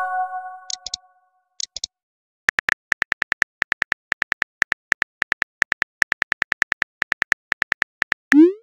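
A texting app's message chime rings and fades, then a quick, even run of virtual-keyboard tap clicks as a message is typed, ending in a short rising pop as it is sent.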